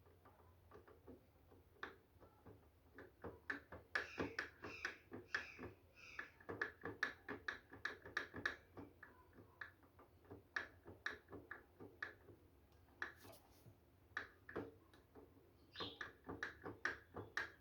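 Quiet, irregular metallic clicks and taps from the opened clutch of a Honda CG 125 Titan engine, thickest in the middle at about three or four a second. This is the noise that the owner traces to the clutch's lock washer having turned out of position, leaving the clutch held only by its small end retainer.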